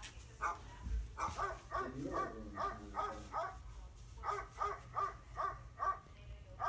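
Dog barking in three quick runs of short, sharp barks, about three to four a second.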